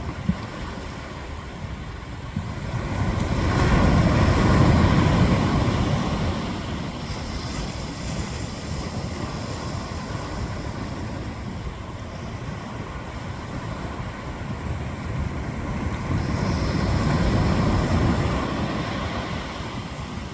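Ocean surf washing onto a beach: a steady rush of water with two waves swelling up and breaking, one about four seconds in and another near the end.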